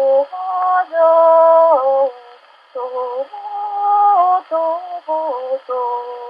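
A woman singing a slow melody in long held notes, several of them ending in a small downward slide in pitch, with a short pause about two seconds in.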